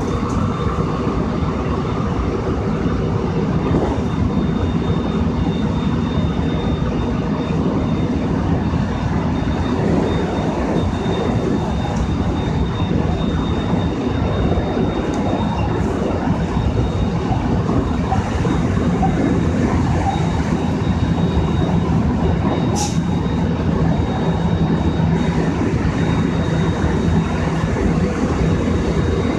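JR West 223 series 1000 EMU running at high speed on the main line, heard from inside: loud, steady running noise with a steady high whine, a sound likened to an airplane. One sharp click comes near the end.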